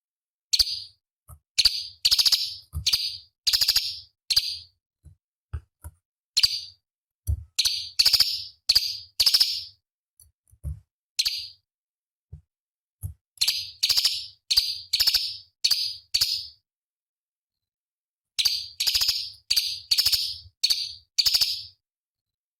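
Cucak cungkok leafbird singing in short, rapid-fire phrases of sharp, harsh notes, each phrase a cluster of quick strokes, broken by brief pauses and a silent gap of about two seconds late on.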